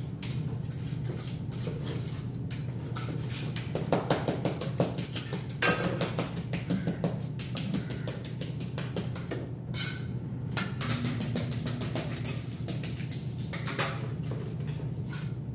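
Irregular taps and knocks of ceramic wall tiles being set into mortar, with a few sharper knocks, over a steady low hum.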